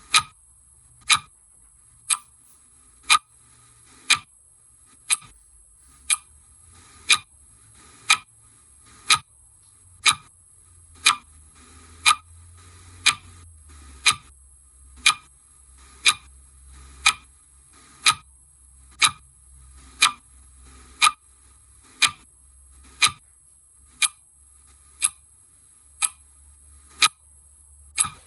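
Clock ticking once a second, sharp and even.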